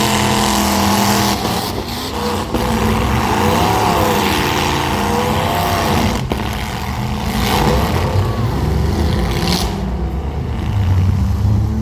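Several small demolition-derby cars' engines revving up and down, with a sharp bang about six seconds in.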